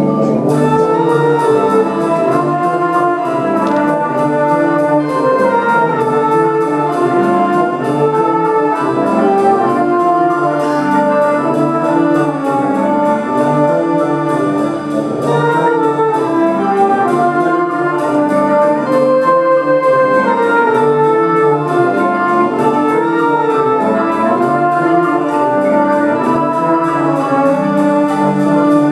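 Wind band playing, led by sustained brass chords that change about once a second, over a faint steady ticking pulse.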